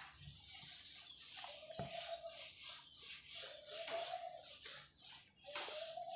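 Whiteboard duster wiping marker off a whiteboard in repeated back-and-forth strokes, several with a faint squeak.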